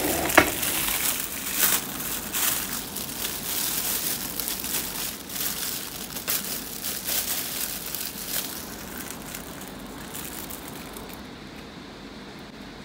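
Clear plastic wrapping crinkling and crackling in irregular bursts as it is pulled open and off a squishy toy, with a sharp click about half a second in. The crinkling thins out and grows quieter toward the end.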